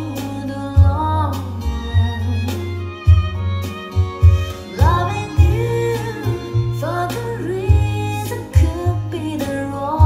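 A song playing through a pair of Yamaha NS-153 three-way floorstanding speakers: a sung vocal line over deep bass notes and sharp drum hits.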